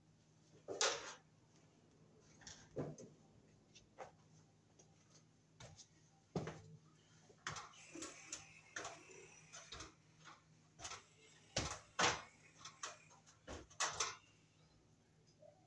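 Irregular knocks, clicks and light rattles as a person climbs a metal stepladder and handles things, the loudest about a second in and around twelve seconds in.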